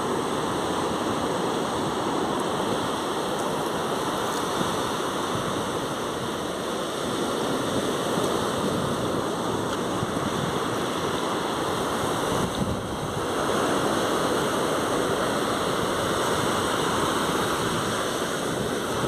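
Ocean surf washing onto a beach, a steady rush of water.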